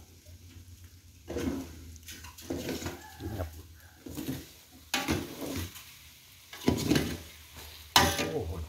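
Metal ladle stirring and scraping chopped eel being stir-fried in an aluminium pot, with a light sizzle and sharp clanks of metal on the pot at irregular intervals; the loudest clank comes near the end.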